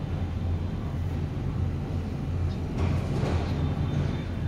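Steady low background rumble outdoors, with a brief rustling noise about three seconds in.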